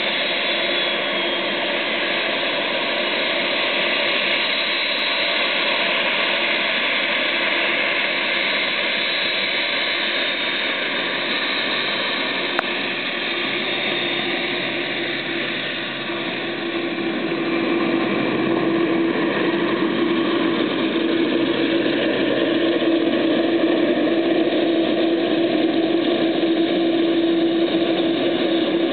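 Boeing 747 freighter's jet engines running as it taxis past: a continuous rushing engine noise with a steady low hum, growing louder past the middle.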